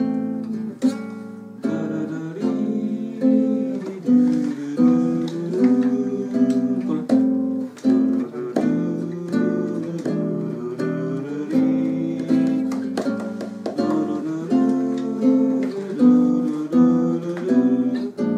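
Two acoustic guitars playing a Japanese pop song (kayōkyoku) together, a picked melody over chords at a steady rhythm.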